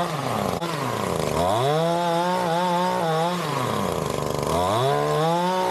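Chainsaw engine at high revs, its pitch sinking twice as the throttle is eased off and climbing back as it is squeezed again. A sharp click sounds about half a second in.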